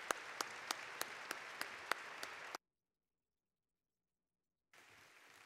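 Audience applauding, with one person's claps standing out close to the microphone at a steady rate of about three a second. The sound cuts off abruptly about two and a half seconds in, leaving two seconds of dead silence, then fainter applause comes back near the end.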